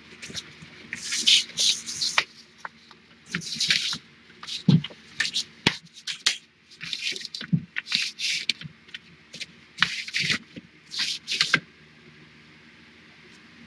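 Poster board being slid and pressed into place against the wire panels of a pet pen: a run of scraping, rustling strokes with a few dull knocks, which stop about twelve seconds in.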